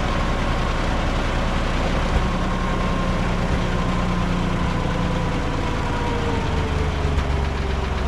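An engine running steadily, its low note shifting slightly a couple of times, with a thin whining tone that slowly falls in pitch.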